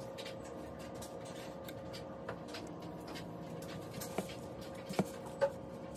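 Soft taps and scuffs of hands dredging green tomato slices through flour and fish fry in plastic bowls, with a few sharper clicks in the second half, over a steady hum.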